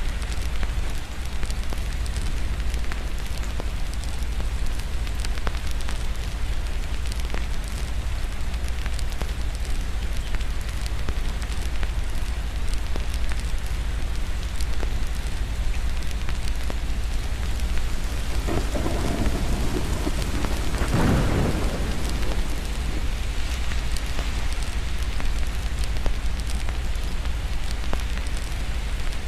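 Steady rain with a fireplace crackling in small clicks throughout, and a roll of distant thunder that swells a little past the middle and fades.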